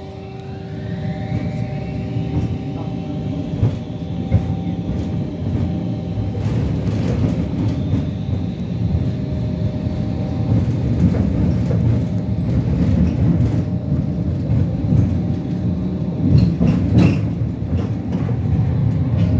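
Electric tram heard from inside while running on street track: a steady low rumble of wheels on rail, with a rising whine from the drive in the first couple of seconds as it gathers speed, and a few sharp knocks near the end.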